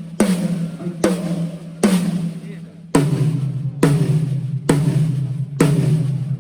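Yamaha Maple Custom Absolute tom-toms struck one at a time, a little under a second apart, each hit ringing out with a clear pitch. About three seconds in, the strikes move to a lower, deeper-ringing tom: single drums being checked in turn for the sound engineer.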